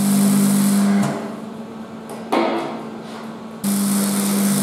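Arc welding steel: a steady buzzing, crackling arc that stops about a second in, a brief arc strike about halfway through, then the weld starting again near the end.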